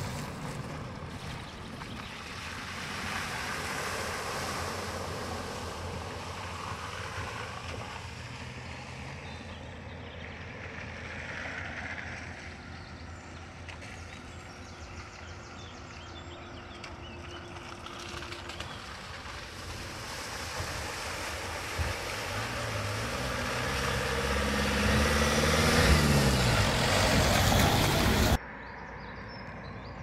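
Vehicles crossing a shallow road ford. A car's engine runs as it pulls away at the start. Then a white panel van drives through the water toward the microphone, its engine and the swish of water off its tyres growing louder up to a peak, and the sound cuts off abruptly near the end.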